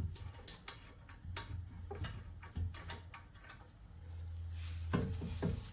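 Irregular metallic clicks and light knocks of tools and brake parts being handled during brake caliper work, with a low hum underneath that comes and goes. A closer run of knocks comes near the end.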